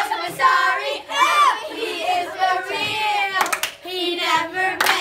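Group of boys singing together, with a few sharp hand claps near the end.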